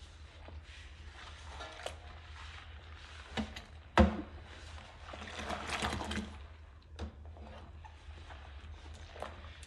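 Hand dishwashing in a sink of soapy water: rubber-gloved hands swish and scrub dishes through the suds. A sharp clink of a dish about four seconds in, with a few lighter knocks.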